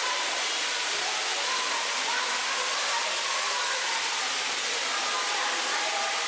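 Steady rushing of falling water, an even hiss that does not change, with faint, indistinct voices of people underneath.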